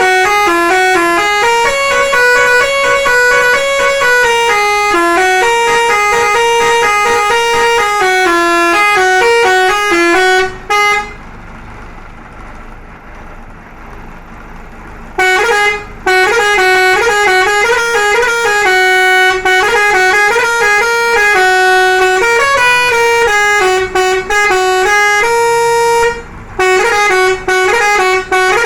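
A bus's musical melody horn playing a tune in quick stepped notes, with a pause of about four seconds in the middle before the tune starts again.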